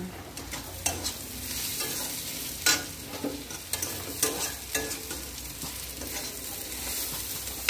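Water at a rolling boil in a pot on a gas stove: a steady bubbling hiss with scattered small pops, and one sharp tap about two and a half seconds in.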